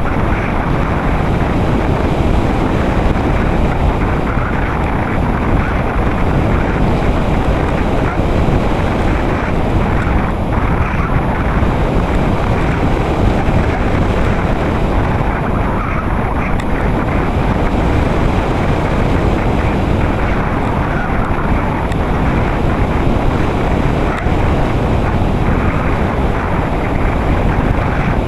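Steady rush of airflow buffeting the onboard camera of a Radian RC glider in flight, with no distinct motor tone, and a faint steady high whine underneath.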